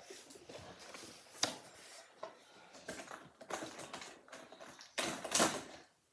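Close-up scattered rustling and scraping with light clicks and taps, with a louder rustle about five seconds in.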